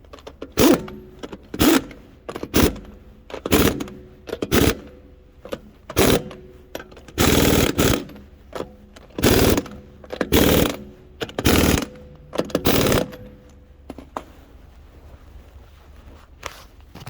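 Impact wrench working lug nuts in short hammering bursts, about one a second, with one longer burst around seven seconds in, stopping about thirteen seconds in.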